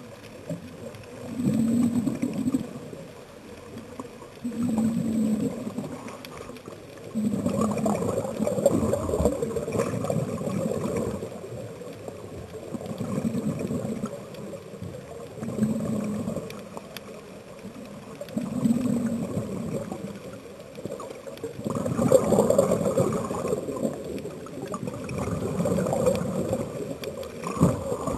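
Scuba diver's regulator breathing underwater. Bursts of exhaled bubbles gurgle and rush past the microphone, repeating about every three seconds.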